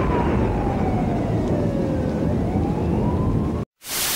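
A siren-like wailing tone over heavy low rumble, gliding slowly down and then back up. About three and a half seconds in it cuts out to a brief silence, followed by a loud, even hiss of static, as when a taped broadcast runs out.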